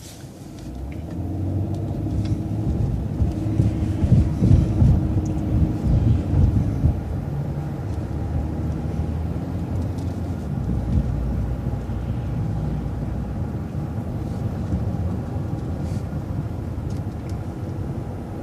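City transit bus engine pulling through an intersection under power. The engine note rises about a second in and is loudest from about three to seven seconds in, then settles into steady running.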